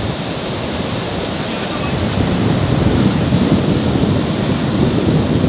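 Sea surf breaking on the shore, with wind on the microphone: a steady rush of noise that grows a little louder after about two seconds.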